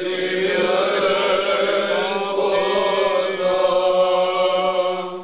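Byzantine liturgical chant: male voices sing a slow, drawn-out line over a steady held low note. The singing stops near the end.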